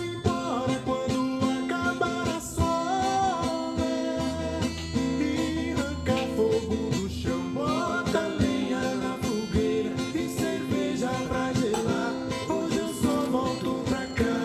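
A song playing: a lead melody with singing over guitar and a rhythm accompaniment.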